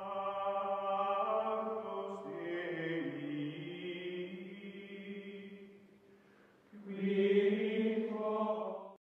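Outro music of long-held, chant-like vocal notes. The pitch steps down a little about two seconds in; the sound fades out near six seconds, comes back with a new held chord about a second later, and cuts off suddenly just before the end.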